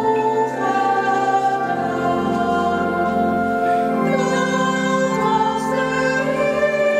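A choir singing a slow church song in long held notes, with sustained accompaniment beneath.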